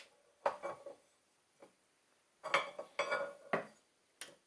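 Steel barrel-nut wrench clinking and knocking against a rifle's barrel nut and barrel while it is worked to unscrew the nut: a few sharp metallic clinks with a short ring, a pair about half a second in and a quicker cluster around the middle.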